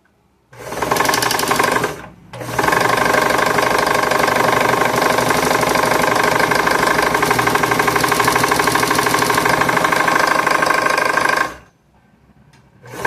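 Elgin sewing machine running at speed, a short run and then a longer one of about nine seconds that stops suddenly, with an annoying knocking noise that the owner puts down to play in a shaft.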